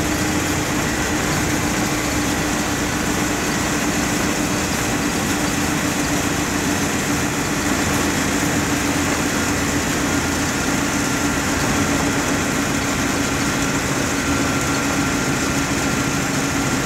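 Cabin noise inside a moving MSRTC bus: the diesel engine drones steadily under road noise, with a low hum holding one pitch.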